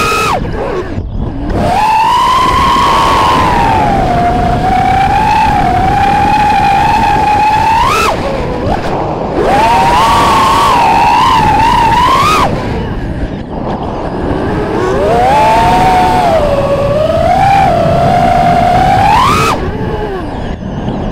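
FPV drone's electric motors whining from close by, the pitch rising and falling with the throttle. Several sharp upward sweeps end in sudden drops as the throttle is cut, about eight and twelve seconds in and again near the end, then the whine returns.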